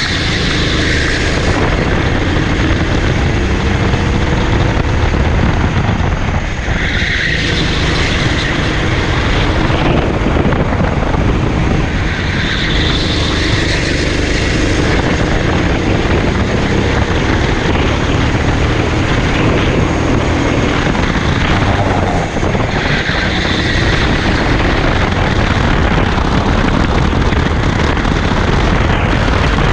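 Racing go-kart engine running hard, heard from on board the kart, its pitch rising and falling with the throttle through the corners and straights.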